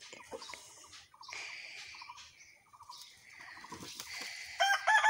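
Chickens clucking faintly in short repeated bursts. About four and a half seconds in, a rooster breaks into a loud crow.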